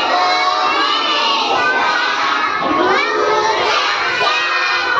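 Many young children's voices chanting together loudly in unison.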